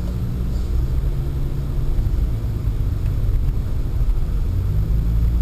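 Pontiac Sunfire driving, heard from inside the cabin: a steady low rumble of engine and road noise.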